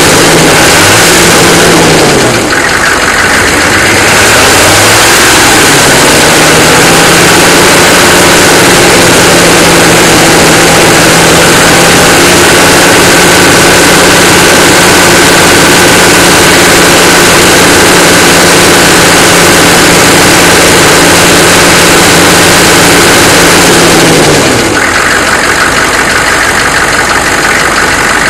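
1993 Chevrolet 6.5L turbo diesel V8 being revved: a couple of short blips, then held at a raised, steady speed for most of the time before dropping back to idle near the end.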